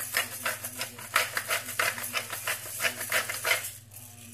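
Hand-twisted pepper grinder grinding peppercorns: a quick, even run of crunching clicks, about five a second, that stops shortly before the end.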